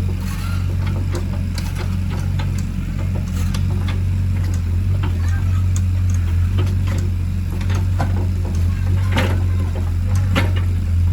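Excavator's diesel engine running steadily, with scattered knocks and clanks, two louder ones near the end.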